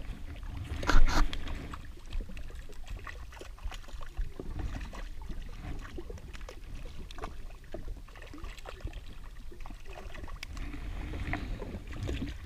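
Small harbour waves lapping and slapping against a jet ski's hull, with a low wind rumble on the microphone. A hooked gurnard splashes at the surface beside the ski, loudest about a second in and again near the end.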